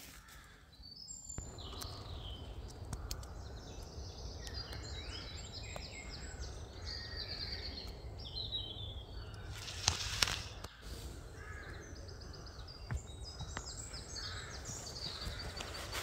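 Forest birds calling and chirping over a low steady rumble, with two sharp clicks about two-thirds of the way through.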